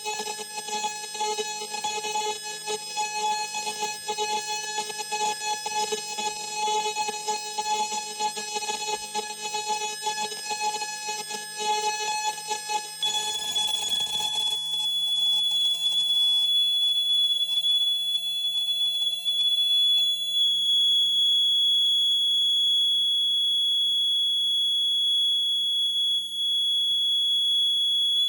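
Electronic noise music: a dense, fluttering stack of held tones that about halfway through thins to a steady, piercing high whine over a quieter wavering low drone.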